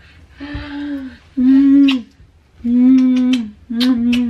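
A woman humming a simple tune with her mouth closed: four short phrases, each held on nearly the same low note, with brief pauses between them. A faint low knock comes about half a second in.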